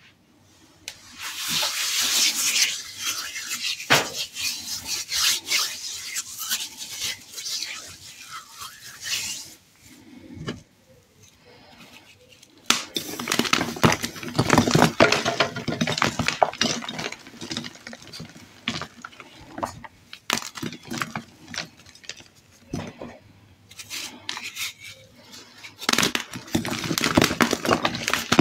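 Hands crushing and crumbling blocks of reformed gym chalk, some dyed red and glitter-coated, giving dry crunching and crackling full of sharp snaps. It comes in three spells, with quieter pauses about a third of the way in and again after about two-thirds.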